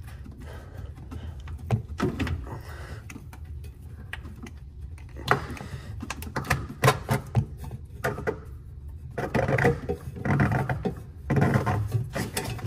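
Plastic clicks, knocks and scraping as a refrigerator's water-fill nipple and hose assembly is worked loose and pulled out by hand, over a steady low hum.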